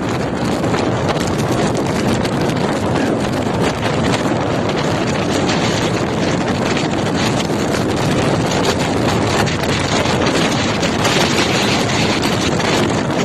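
Blizzard wind blowing hard against the microphone, a steady loud rushing.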